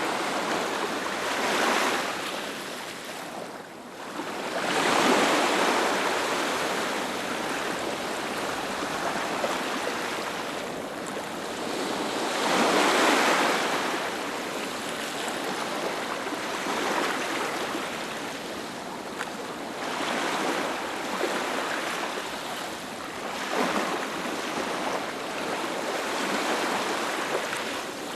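Ocean waves breaking and washing up a beach: a continuous hiss of surf that swells with each breaking wave and recedes in between, several times.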